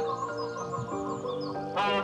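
Soft background music with steady sustained notes, and a flamingo's short honking call near the end.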